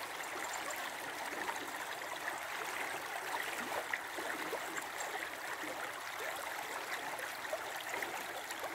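Low river water running over shallow stony shoals: a steady, even babble of flowing water.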